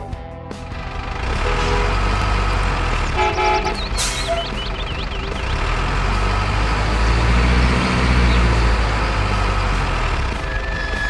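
A truck engine rumbling steadily, growing louder partway through. There are short horn toots about two to three seconds in, and a brief hiss about four seconds in followed by a wavering high-pitched tone.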